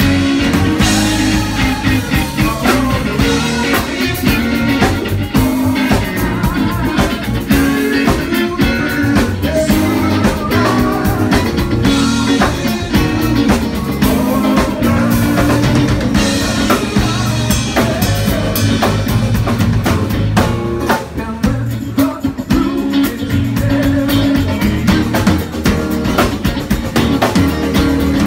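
Live funk-rock band playing loud and unbroken: drum kit with snare and rimshot hits driving a steady beat under electric guitar.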